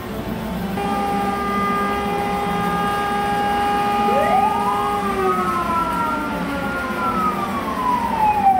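Sirens wailing. One holds a steady pitch and then slowly sags, while a second winds up sharply about four seconds in, holds high, and then slowly falls.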